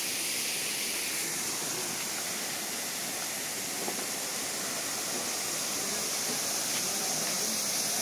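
Waterfall: falling water giving a steady, even rushing hiss.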